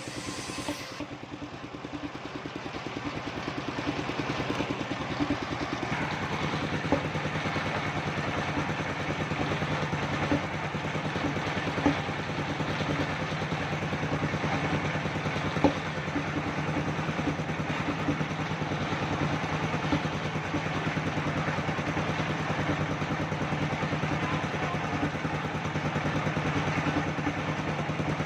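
Engine-driven circular sawmill running steadily, its motor humming under a constant noisy rush, with a few sharp knocks. The hum grows stronger about six seconds in.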